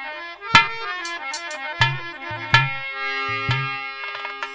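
Instrumental music of a Hindi devotional song (bhajan): a melody of held notes with sharp struck accents over a few low drum strokes.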